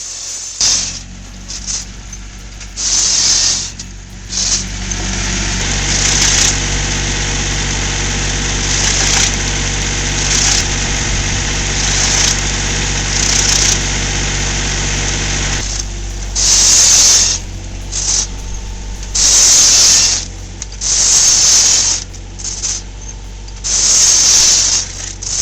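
A machine's engine running steadily, with about a dozen loud, hissing surges of a second or so each, coming more often and louder in the last third.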